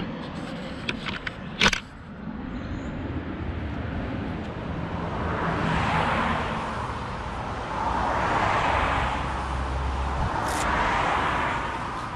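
Road traffic: three cars pass one after another, each a swell of tyre and engine noise that rises and fades, with a low engine rumble under the second. Before them, in the first two seconds, come a few small clicks and a sharp knock.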